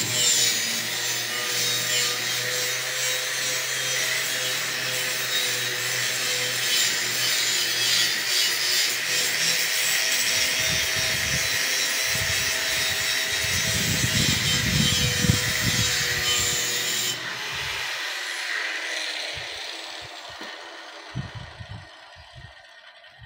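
Angle grinder abrading rust off steel, a continuous harsh grinding with the motor's steady whine. About three-quarters of the way through the grinder is switched off and winds down with a falling whine, leaving a few soft thumps.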